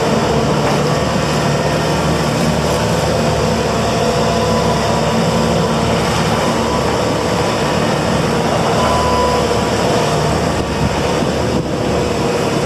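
Bobcat S740 skid steer loader's diesel engine running steadily at a constant speed.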